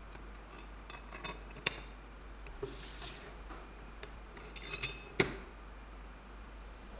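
Steel parts of a homemade welded tool clinking and knocking as a threaded rod, nuts and steel plates are handled and set down on a wooden table. There is a short scrape about three seconds in, and the loudest knock comes about five seconds in.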